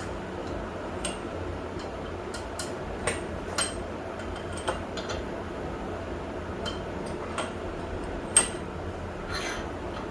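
Scattered light clicks and small metallic taps, irregularly spaced, the sharpest about eight seconds in, over a steady low background hum.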